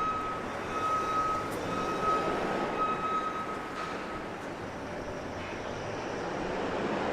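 Backup alarm beeping in long, evenly repeated tones about once a second, stopping a little past the middle, over a steady hum of city traffic.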